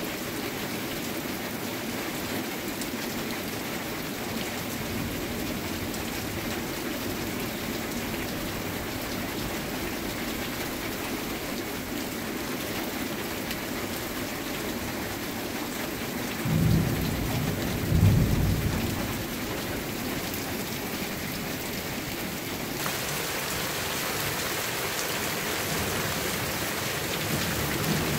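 Steady rain falling in a thunderstorm. About two-thirds of the way in, thunder rumbles twice in quick succession, the second clap louder and trailing off. Near the end the rain's hiss grows louder.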